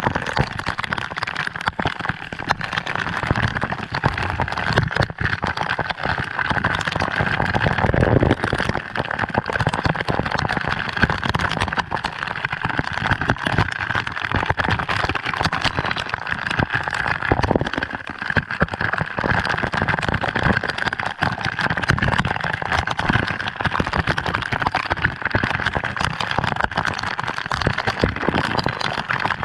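Waterfall water falling and splashing, a steady rushing patter of drops with a dense crackle.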